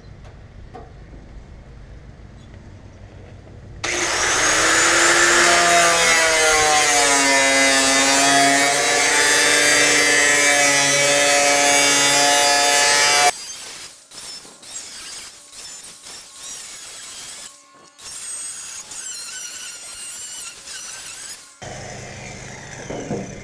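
Angle grinder with a cut-off disc cutting out a rusty section of sheet-steel truck tailgate. It starts about four seconds in with a loud, high whine whose pitch dips as the disc bites into the metal, then cuts off sharply. After that it runs in shorter, quieter, uneven stretches until it stops near the end.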